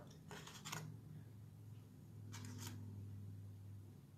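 Faint rustling and brushing of cardstock being moved over sheets of scrap paper, a few short scrapes near the start and again about two and a half seconds in.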